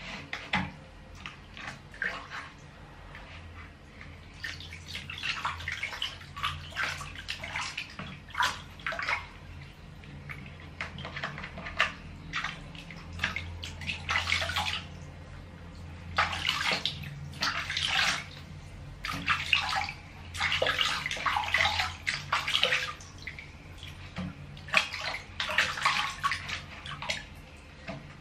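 Water splashing and sloshing in a plastic basin as a baby monkey is washed by hand, in irregular bursts with short pauses, over a steady low hum.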